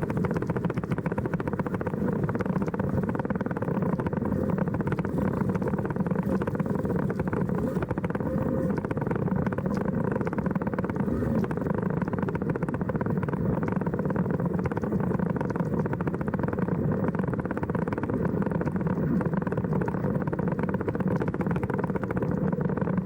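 Steady driving noise inside a car cabin: an even hum of tyres, road and drivetrain with no changes.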